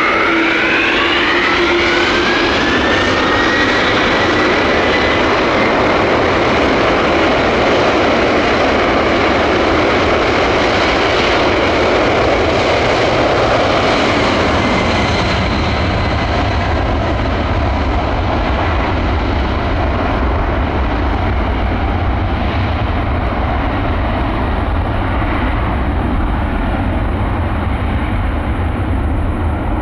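Boeing 747-400F jet engines at take-off thrust: a whine rising in pitch over the first few seconds as the engines spool up, then a steady heavy roar. In the second half the high whine fades and a deep rumble grows.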